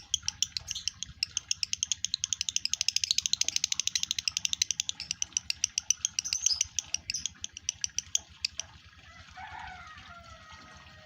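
Male lovebird in breeding condition chattering: a long, fast run of sharp, high chirps that quickens in the middle and breaks off about eight seconds in, followed by a few softer, lower calls.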